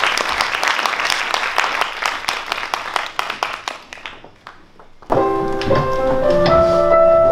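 Audience applause that dies away over about four seconds. After a brief lull, a keyboard begins playing slow, held notes, the introduction to the next song.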